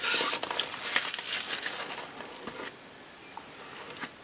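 Paper rustling and crinkling as a card swatch sheet and tissue wrapping are handled and rubbed with the fingers, with a light tap about a second in, then quieter handling.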